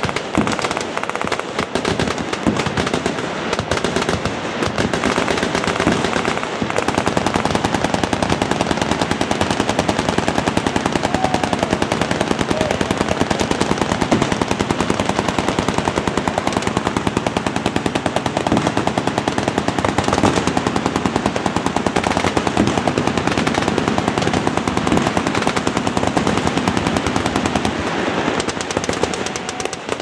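Many machine guns firing fully automatic at once, a continuous stream of overlapping bursts with no pause, easing off slightly near the end.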